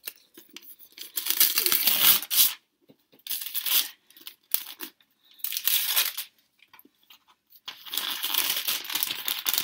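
Wrapping paper being torn and crinkled by hand in several bursts, the longest about a second in and near the end, with a few light taps in between.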